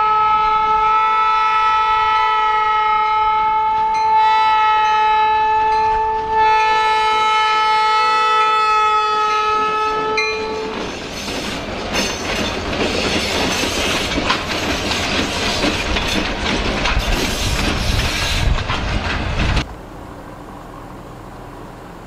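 Diesel locomotive air horn blowing a multi-note chord for the crossing, held long with a brief break about six seconds in, stopping near the halfway point. Then the two locomotives pass at the crossing with diesel engine rumble and wheels clattering over the rails, cut off abruptly about three quarters of the way in.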